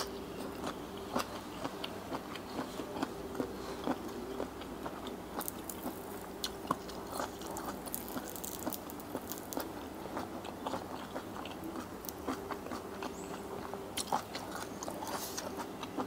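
Close-miked chewing of raw octopus in a spicy seafood salad: a steady run of small wet mouth clicks and soft crunches.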